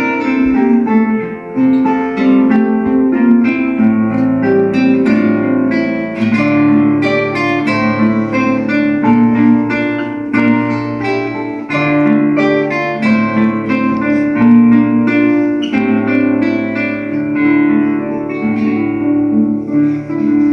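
Acoustic guitar playing a slow plucked melody, note by note, over held bass notes.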